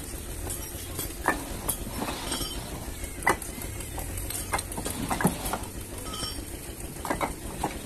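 Clay bricks knocking and clinking against one another at irregular intervals as they are passed by hand and set down in stacks, over a steady low hum.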